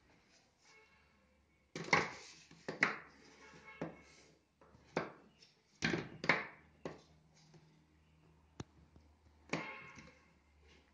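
Plastic drip-irrigation tubing and fittings being handled and set down on a tabletop: a series of irregular light knocks and rustles.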